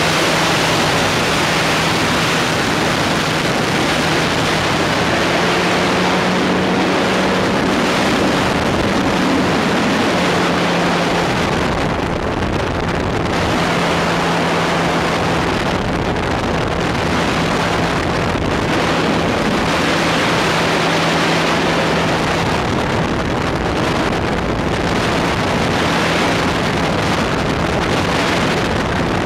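Powered hang-glider trike's engine and propeller running steadily in flight, with a constant hum under heavy wind rushing over the microphone.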